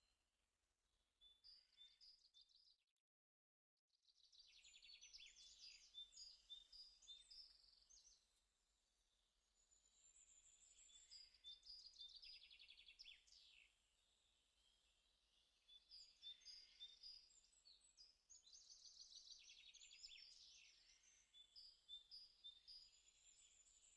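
Faint birdsong: several birds chirping and trilling in repeated high phrases. The sound cuts out completely for about a second near the three-second mark.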